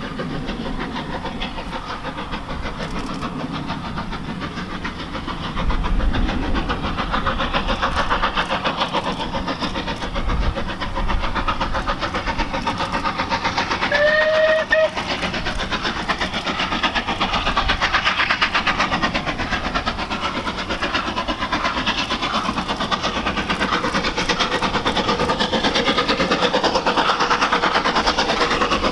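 Bulleid Battle of Britain class Pacific 34081 '92 Squadron', a three-cylinder steam locomotive, approaching with a freight train, its exhaust beating rapidly and growing louder as it nears. About halfway through it gives one short whistle blast.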